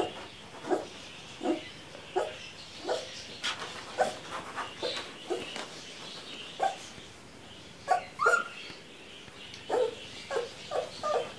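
Newborn puppies squeaking and whimpering while they nurse: many short, thin, rising squeaks in an irregular series, several close together near the end.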